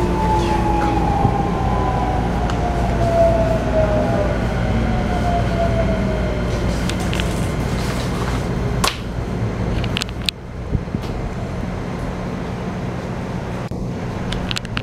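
Interior running sound of a Keikyu New 1000 series train with a Toyo IGBT-VVVF inverter: the inverter and traction-motor whine falls steadily in pitch over steady wheel and car rumble as the train slows into a station. The whine fades out about six seconds in. A few sharp clicks and knocks follow as the train comes to a stop.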